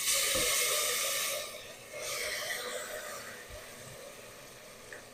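Sliced vegetables tipped into a pan of hot cooking oil, sizzling loudly at once. The sizzle eases after about a second and a half, flares briefly again about two seconds in, then dies down steadily.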